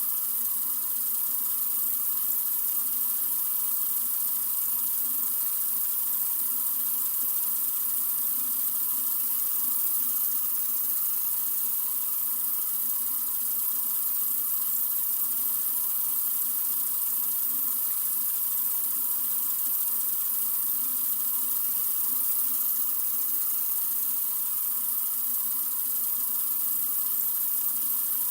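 Sink faucet running steadily: an even, unbroken hiss of flowing water.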